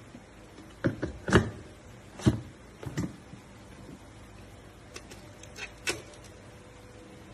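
Clear plastic lid and stainless steel motor head of an electric meat grinder/chopper being fitted onto its bowl: a string of sharp clacks and knocks, the loudest about a second and a half in, with a couple of lighter ones near the end.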